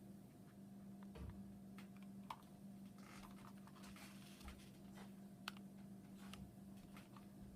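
Hunter Park Lane ceiling fan running quietly: a faint steady hum with scattered light clicks and ticks.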